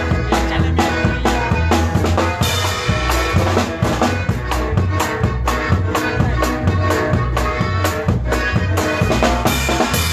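A regional Mexican conjunto playing, with a steady drum-kit beat and bass under sustained melody notes.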